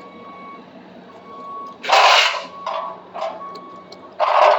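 Repeated electronic beeping, with loud bursts of harsh noise about two seconds in and again near the end.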